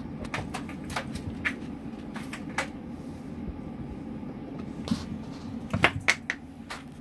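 Scattered light clicks and knocks over a steady low hum, with the loudest few knocks coming close together about six seconds in.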